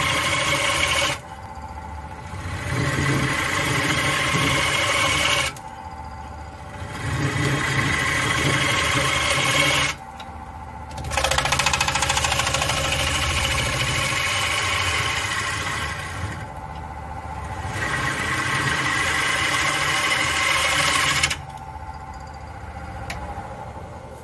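Turning tool cutting a spinning black walnut bowl blank on a wood lathe, in several passes of a few seconds each with the lathe running on between them; the last and longest pass ends about 21 seconds in. The wood being cut away is soft, punky walnut.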